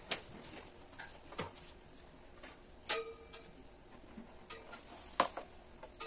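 A few sharp clicks and knocks from handling the plastic-wrapped fan and its power cord, one about three seconds in with a brief ringing tone.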